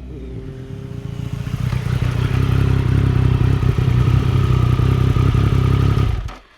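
Triumph Daytona 955i's 955cc three-cylinder four-stroke engine running at a steady speed with a pulsing note, growing louder over the first two seconds, then holding steady before cutting off near the end.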